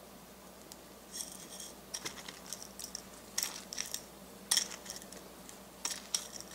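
Faint clicks and scrapes of sugar sprinkles and a glazed donut against a ceramic plate as the donut is pressed into the sprinkles, in several short, scattered bursts.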